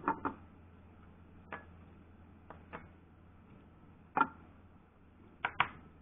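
Scattered small clicks and taps from handling small reloading parts and tools on a workbench, about eight in all, with the sharpest about four seconds in and a quick pair near the end, over a faint steady hum.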